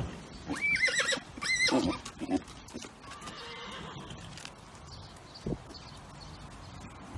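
A horse whinnying twice in quick succession, two short high calls with a wavering pitch about a second apart. A single soft knock comes later.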